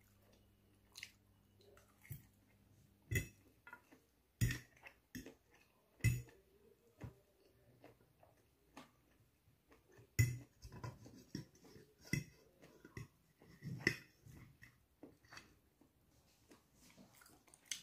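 Close-up eating sounds: chewing noodles, with irregular sharp clicks and clinks of a metal fork against a ceramic plate.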